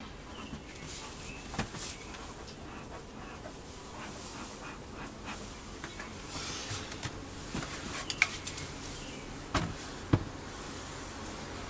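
Wooden hive cover being handled and lifted off a beehive: a few sharp knocks and clicks, the loudest about eight to ten seconds in, over a steady soft hiss with honeybees buzzing faintly.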